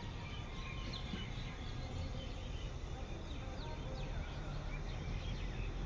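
Outdoor ambience: a steady low background rumble with small birds chirping faintly and repeatedly over it.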